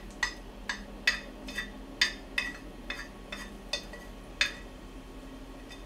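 Wooden chopsticks knocking and clicking against the inside of a dry pot while stirring dried anchovies being toasted before broth is made: about a dozen sharp, irregular clicks over the first four and a half seconds, then they stop.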